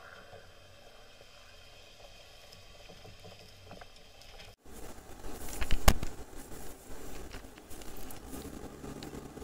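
Wind buffeting and rumble on the microphone of a camera mounted on a 4x4 pickup driving on sand: a steady low rumble and hiss at first, then after a cut a louder, rougher rumble with crackling knocks, the loudest a sharp thump about six seconds in.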